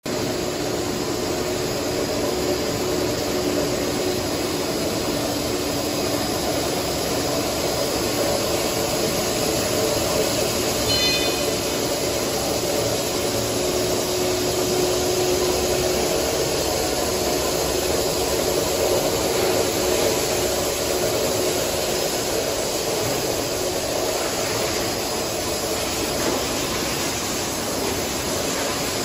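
Paper jumbo-roll slitter rewinder running at speed: a steady, loud rushing whir of rollers and paper web winding onto the rewind shafts, with faint steady hums underneath. A brief high chirp sounds once partway through.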